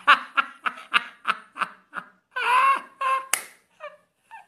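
A man laughing hard in short, rhythmic bursts, about three a second, breaking into a longer, higher-pitched laugh about halfway through.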